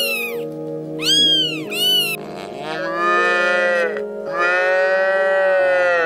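A cat meowing a few times in short calls, then a cow mooing twice in long drawn-out calls, over background music.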